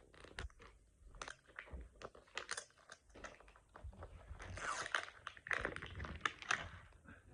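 Plastic toy packaging crinkling and tearing as it is pulled open by hand: irregular crackles that come thickest about halfway through.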